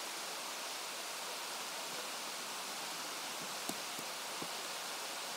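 Steady rushing of a river, an even wash of water noise, with three faint clicks a little past halfway through.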